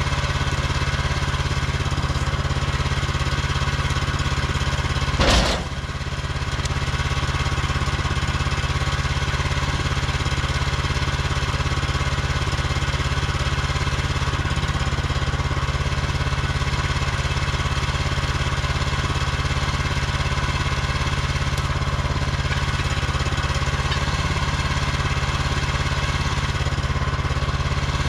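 Woodland Mills HM130MAX portable sawmill's gas engine idling steadily while it warms up after a choked cold start. A single brief, loud noise stands out about five seconds in.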